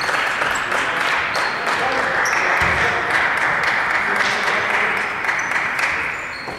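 Spectators and bench applauding and cheering in a sports hall, dying down near the end, with a few basketball shoes squeaking on the wooden court.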